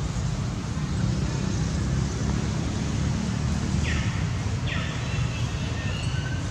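Steady low outdoor rumble, with a few short high chirping calls about four seconds in and again near the end.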